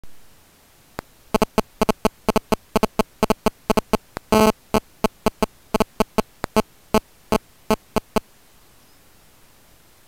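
Mobile phone interference from the Ltl Acorn 6310 camera trap's own transmitter, picked up by its microphone: a string of short, sharp buzzing pulses at uneven spacing, with one longer burst about halfway through. The pulses stop a little after eight seconds, leaving faint hiss.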